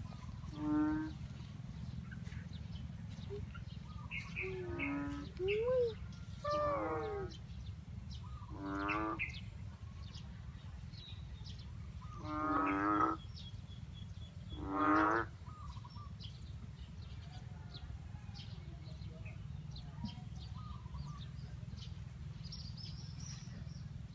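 Frogs calling after rain: a series of about eight low, pulsed, lowing calls, each under a second long, spread irregularly over the first two-thirds, with faint high chirps in between.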